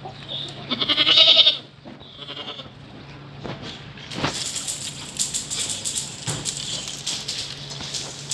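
A young goat bleats once about a second in, a loud, wavering call. Soft clicks and rustling follow.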